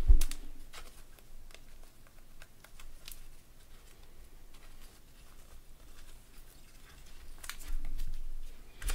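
Trading cards being slid and flicked one by one off a stack in gloved hands, with faint ticks and rustles. A sharp knock just after the start and a run of taps and clicks near the end as the stack is set down and squared on the table.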